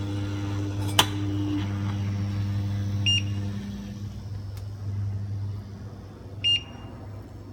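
Bosch induction hob humming steadily under a pan, the strange noise that the owner is showing, with a higher tone over the hum that shifts pitch early on. A sharp click about a second in, two short high beeps from the hob a few seconds apart, and the hum eases near the end.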